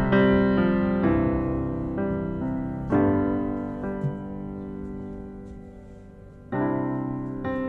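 Background piano music: slow chords struck every few seconds, each left to ring and fade.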